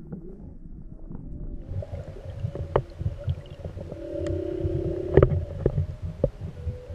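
Humpback whale song heard underwater: long, steady moaning tones, with a lower wavering moan about four seconds in, over a low watery rumble. A few sharp knocks cut through, the loudest about five seconds in.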